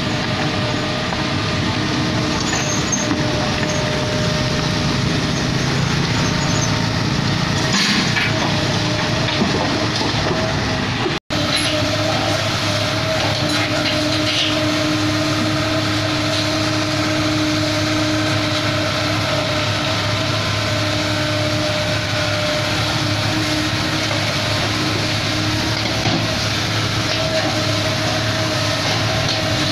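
Kobelco SK75 crawler excavator's diesel engine running steadily as it digs, a constant hum. The sound drops out for an instant about eleven seconds in, after which the hum is steadier in pitch.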